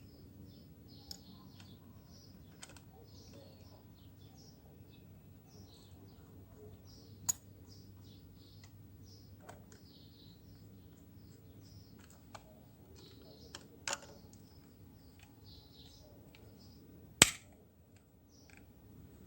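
Scattered sharp clicks and taps from handling a hair clipper's metal blades and small tools while the blade gap is adjusted, about eight in all, the loudest near the end. Faint bird chirps in the background.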